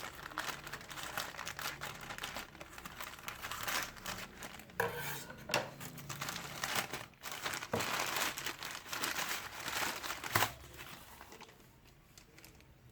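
A courier package being torn open by hand: crinkling and tearing of the packaging with irregular sharp crackles, dying down about ten seconds in.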